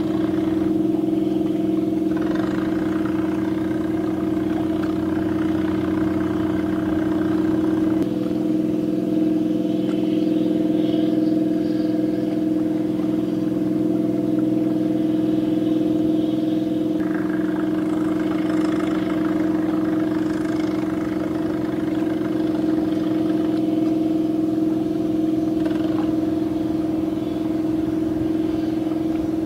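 Steady low drone of a ship's diesel machinery: a constant pitched hum that does not change in pitch or level. A rougher engine noise joins it twice, for several seconds each time, about two seconds in and again just past halfway.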